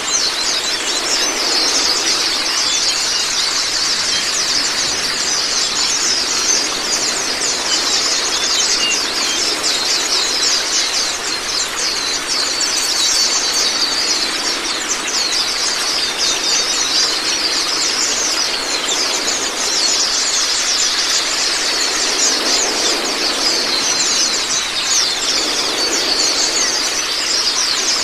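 White-eyes (Zosterops) singing rapid, high chirping trills without pause, over a steady rush of running water.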